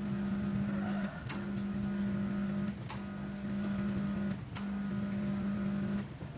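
Coffee machine humming in four runs of about one and a half seconds, each cut off by a sharp click, as it switches on and off under the repaired control board.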